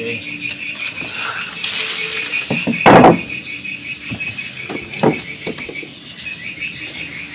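Insects chirping steadily in a fine, pulsing chorus, with a loud thump about three seconds in and a softer one a couple of seconds later.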